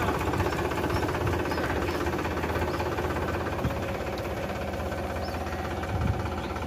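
Powertrac Euro 50 tractor's diesel engine running steadily at low speed as the tractor creeps forward towing a wheat thresher.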